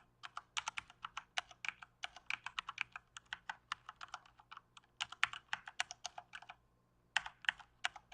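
Computer keyboard being typed on in quick runs of keystrokes, with a brief pause near the end.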